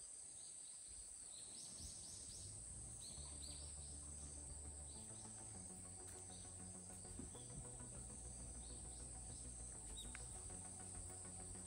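Faint, steady high-pitched buzz of insects, with a few short bird chirps, mostly in the first few seconds. Soft low background music sits underneath.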